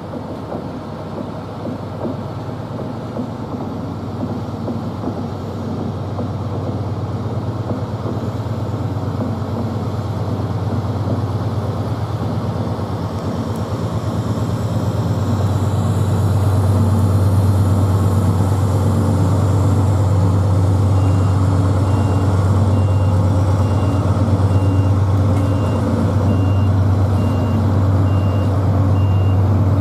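Diesel locomotive engine running with a steady low drone that grows louder over the first half and then holds. A faint, evenly repeating high beep joins in the second half.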